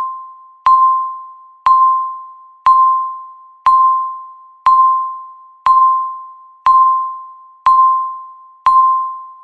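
Electronic countdown-timer beep, one each second: a single steady tone that starts sharply and fades away before the next, marking off the final seconds of the countdown.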